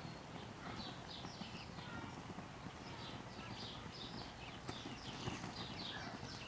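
Soft, irregular crackling and ticking of a burning puddle of molten candle plastic, cooking oil and alcohol.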